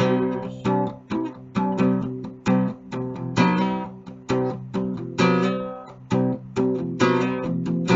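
Acoustic guitar strummed in a fast, steady rhythm: an instrumental stretch of a song, after a sung line ends just at the start.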